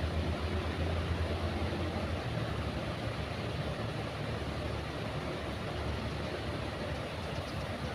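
Train running past with a steady, heavy rumble, deepest in the first couple of seconds.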